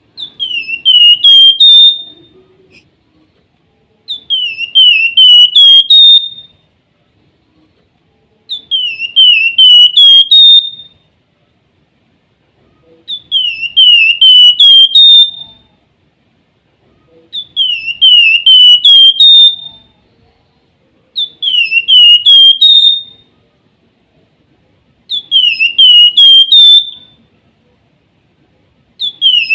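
Javan fulvetta (flamboyan) singing its whistled 'nyiul' phrase: about five quick, high whistled notes, each dipping and rising, that end on a higher held note. The phrase is repeated loudly about every four seconds, with silence in between.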